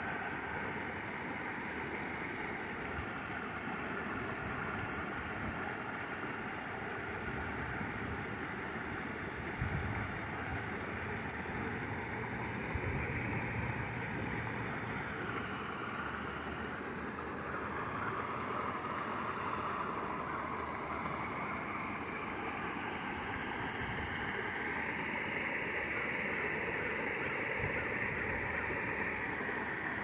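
Water spilling over a low rock weir into a pond, a steady rushing splash.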